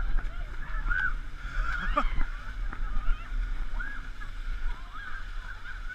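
Indistinct voices of people calling out, over a steady low rumble of wind and handling on a body-worn action camera.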